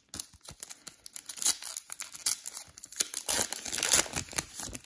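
Foil wrapper of a 2020 Panini Select trading card pack crinkling in the hands and being torn open: a run of sharp crackles that grows denser in the second half.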